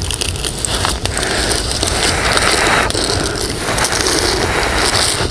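Crunching and scraping of embers and ash as a clay cooking pot is pried out of the fire, in two denser spells.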